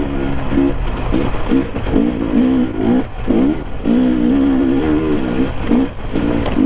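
Enduro dirt bike engine revving hard as it is ridden, the revs climbing and dropping again and again.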